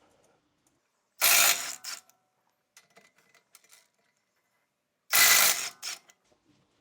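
Ratchet wrench turning brake bolts: two short, loud bursts of rapid ratcheting, about four seconds apart.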